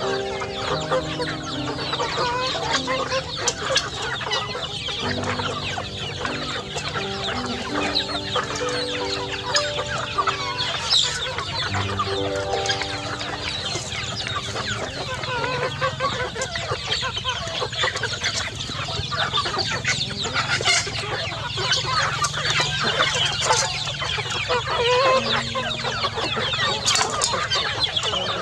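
A large flock of chickens clucking continuously as they crowd round and eat from a feed basin, many birds calling over one another.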